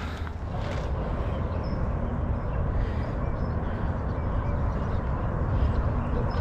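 Steady low rumbling noise, with a few faint high chirps about two seconds in.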